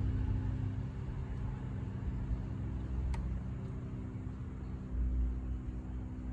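Subaru Forester's engine running at a steady idle after the oil change. A low, even hum holds steady throughout.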